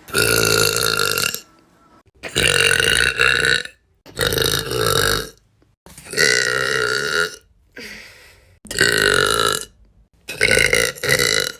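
A run of six loud, drawn-out burps from girls, each lasting about a second, with short pauses between them.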